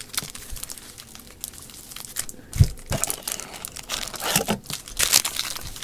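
Foil wrapper of a trading-card pack crinkling and tearing as it is opened, with cards handled: irregular rustles and clicks, busiest a couple of seconds in and again near the end.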